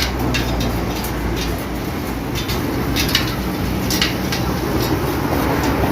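Irregular sharp metallic clicks and taps from hand work on a bicycle rear hub, over a steady low background rumble.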